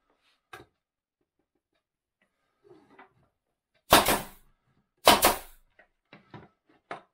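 Two loud sharp knocks about a second apart, with faint ticks before them and several lighter taps after, like wooden parts being knocked and set down on a bench.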